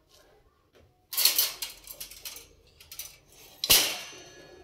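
Stainless steel colander of cauliflower florets being handled: rattling and clattering from about a second in, then one sharp metallic clank near the end.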